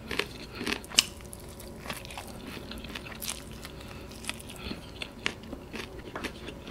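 Close-miked mouth sounds of eating sauced bone-in fried chicken: chewing with scattered sharp clicks and smacks, the loudest about a second in, and fingers being sucked clean.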